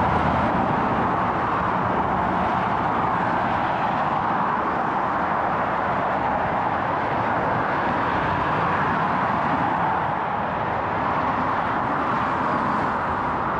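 Steady hiss of road traffic, a continuous tyre noise from a busy road.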